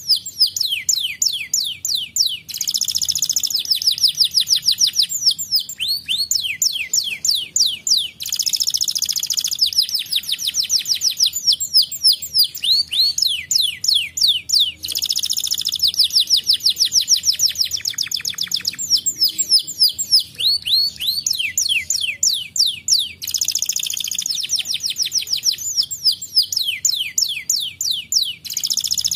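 Domestic canary singing a long unbroken song: fast trills of quick falling notes, with short dense buzzy rolls every few seconds.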